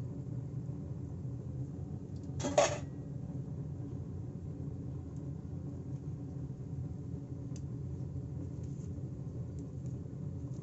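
Steady low kitchen hum while oil heats in a kadai. About two and a half seconds in there is one brief, sharp clatter.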